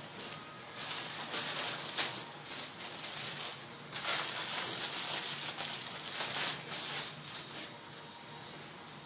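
Rustling and crinkling of cloth being handled and unfolded, in irregular spells that are loudest in the middle and die down near the end.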